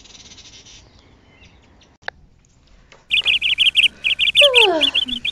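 Songbirds chirping, starting suddenly about three seconds in: a fast, loud series of high chirps, several a second, with a lower call that slides down in pitch near the end.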